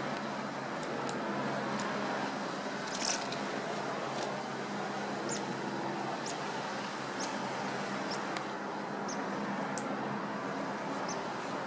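Steady outdoor background hiss with scattered faint, short high-pitched chirps or ticks, and one louder sharp high-pitched call about three seconds in.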